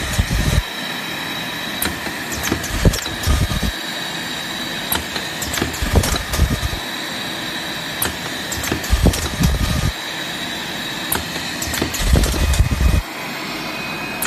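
Automatic zipper-bag packaging machine running through its cycle: a steady high whine under a low rumble with a burst of clicks and clunks about every three seconds.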